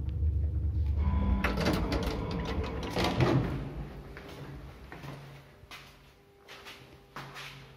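Old KMZ passenger lift arriving at a floor: the low rumble of the car travelling dies away about a second in, then the cab's sliding doors open with a rattling clatter. Scattered faint knocks and clicks follow.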